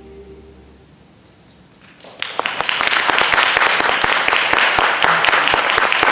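A choir's last held chord fades away and, after a hush of about a second, an audience breaks into applause about two seconds in, loud, steady clapping that keeps going.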